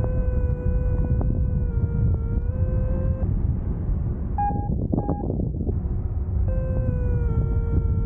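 Wind rushing over the microphone in flight, with a paragliding variometer's steady sink tone that wavers slightly in pitch. About three seconds in the tone stops and two short, higher beeps sound, then the steady tone returns near the end.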